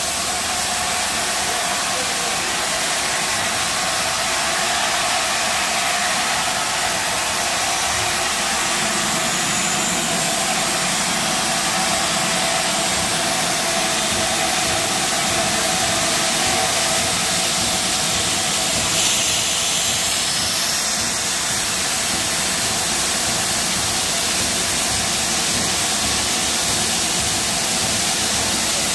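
Steam hissing steadily from the BR Standard Class 7 locomotive 70000 Britannia as it stands at the platform, escaping around its cylinders, wheels and front buffer beam.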